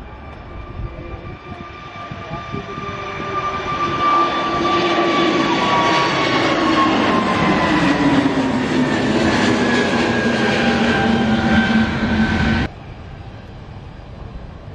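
Airbus A320 jet airliner's engines at takeoff thrust as it lifts off and climbs past. The noise builds over about four seconds and a whine slides down in pitch as it goes by, then cuts off suddenly near the end.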